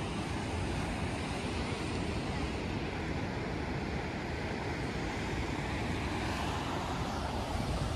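Atlantic surf washing over rocky ledges in a steady roar of breaking waves, with wind rumbling on the microphone. A brief thump comes at the very end.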